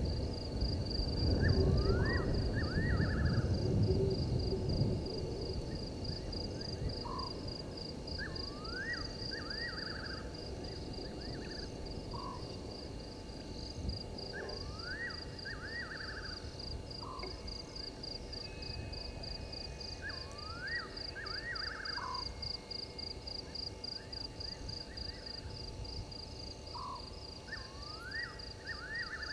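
Night bush ambience: a steady high insect trill pulsing a few times a second, with an animal call of several quick rising notes repeated about every five to six seconds. A low rumbling noise is loudest in the first five seconds.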